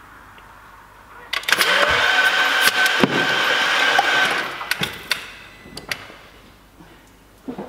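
Audi RS3 five-cylinder engine spun over on the starter with its spark plugs out, to prime the oil after a rebuild: about three seconds of steady cranking with a high starter whine, starting a second or so in and cutting off. A few sharp clicks and a knock follow.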